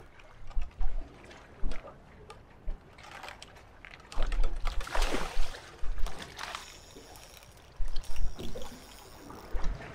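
Water splashing and sloshing around a small open boat, with scattered knocks and low rumbles of wind on the microphone. The loudest splash comes about four to six seconds in.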